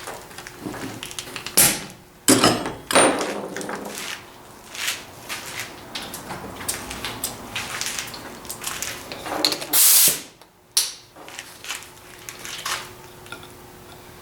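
Irregular scraping and rubbing strokes with knocks of hand-tool work, the loudest bursts a few seconds in and again about ten seconds in.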